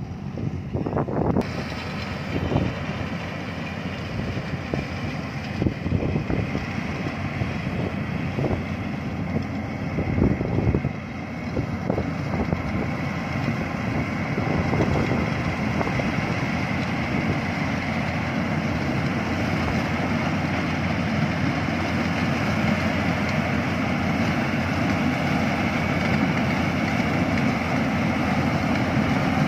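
Yanmar AW82V rice combine harvester running steadily as it cuts and threshes rice, its engine and threshing machinery growing louder as it comes closer. A few wind buffets on the microphone in the first ten seconds or so.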